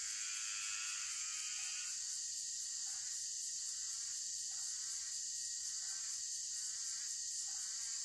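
Dusk forest insect chorus, with crickets making a steady high-pitched drone. Under it a short call repeats about every second and a half, and a warbling trill sounds in the first two seconds and again near the end.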